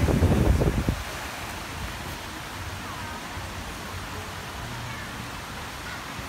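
Open-air city park ambience: a steady hiss of background noise, with wind rumbling on the microphone during the first second and a few faint, short, curving high calls later on.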